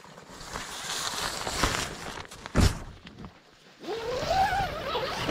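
Rustling and shuffling of tent fabric as someone moves about and climbs in at the tent door, with a single dull thump about halfway through. Near the end comes a drawn-out wordless vocal sound that rises and then falls in pitch.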